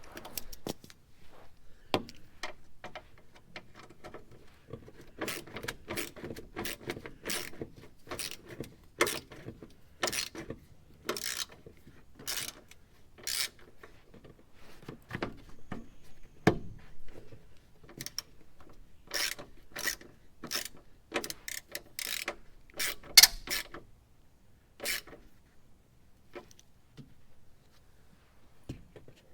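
Ratchet wrench clicking in irregular strokes, tightening a bolt on a pickup's front bumper.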